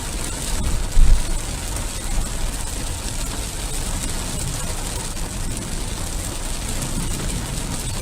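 Heavy rain falling steadily, with a low rumble underneath and one thump about a second in.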